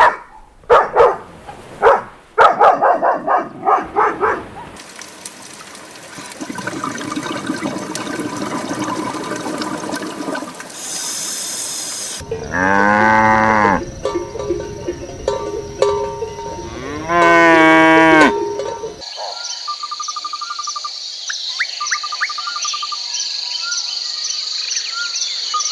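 A run of animal sounds from a farm-animal compilation, the clearest being a cow mooing twice, two long calls a few seconds apart past the middle. They are preceded by a string of short repeated calls and followed by a high steady tone with small chirps.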